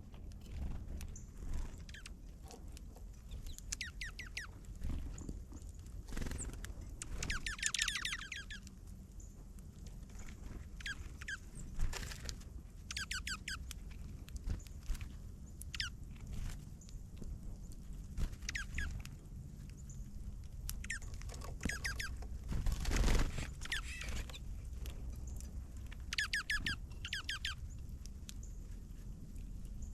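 Small songbirds chirping in quick bursts of short, high notes every few seconds, over a steady low rumble. About three quarters of the way through there is a louder rustle or knock.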